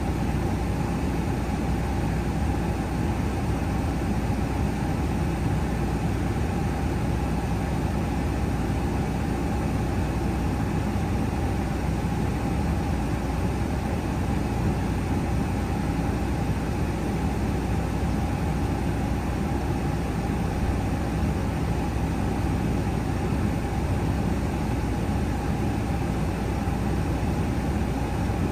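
MAN TGX 510 truck on the move: a constant drone of engine and road noise that holds steady without any change in pitch or level.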